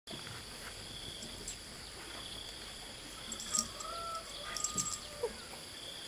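Rural outdoor ambience: a steady high-pitched insect drone, with a few sharp clicks and a short held call in the middle.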